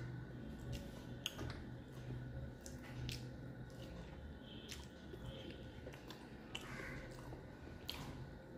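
Close-miked eating by hand: fingers squishing rice and fish curry on a plate and a mouth chewing, with scattered soft clicks and smacks over a low steady hum.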